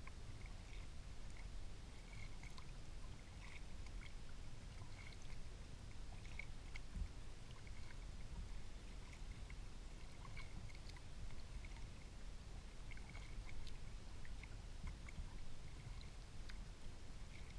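Quiet water sounds of a kayak under way: soft trickling and dripping over a low steady rumble, with faint short high chirps scattered through.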